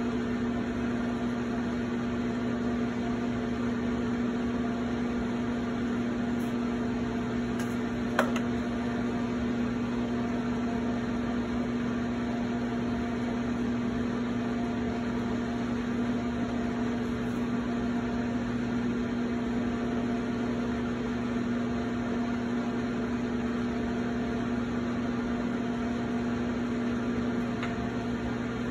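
Electric potter's wheel motor running at a steady speed, a constant even hum, with a single sharp click about eight seconds in.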